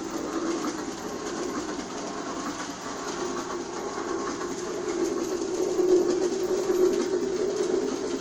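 New Bright Railking G scale toy train running on its track, a steady whirring motor and wheel noise, loudest a little past the middle, that stops suddenly at the end.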